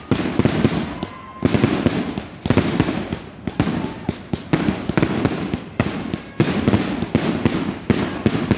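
Fireworks display: aerial shells bursting in quick succession, about one loud bang a second, each followed by crackling that dies away.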